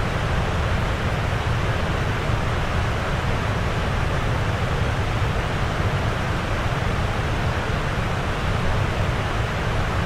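Steady rushing water, a dense even roar weighted toward the low end, with no separate drops or splashes standing out.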